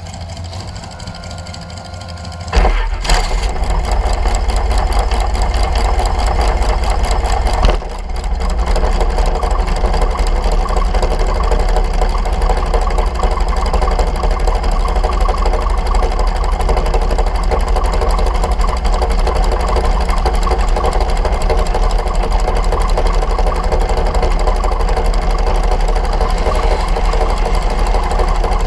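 Dragster engine firing about two and a half seconds in, then running at a steady, loud, rapid idle, with one sharp jump in level near eight seconds.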